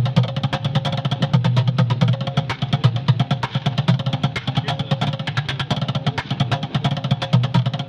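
Upturned plastic buckets drummed with sticks in a fast, dense rhythm: rapid sharp stick strikes over deep bucket tones.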